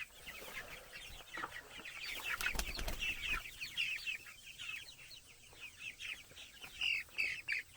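A flock of young Cornish cross broiler chickens peeping, many short falling chirps overlapping, with a few soft knocks a little after two seconds in.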